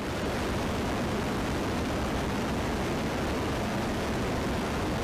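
Steady in-flight drone of turboprop aircraft: an even rushing noise of propellers and airflow with a low rumble beneath, holding level without change.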